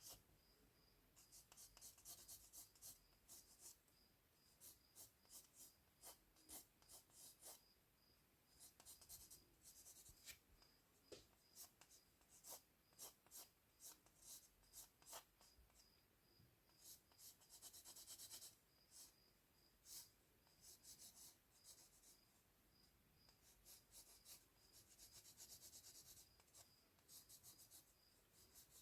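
Faint scratching of a drawing tool on paper while sketching: short, quick strokes coming in clusters, with brief pauses between them.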